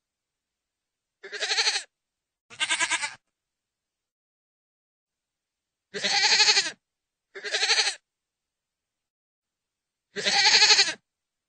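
Goat bleating: five short, wavering bleats. The first four come in two close pairs, and the fifth, a longer one, comes near the end.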